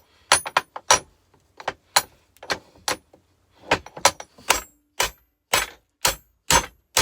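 Hammer striking the metal of a car compressor in quick repeated blows, two or three a second, each with a bright metallic ring, to knock a brass part off its pressed fit on the cast-iron body.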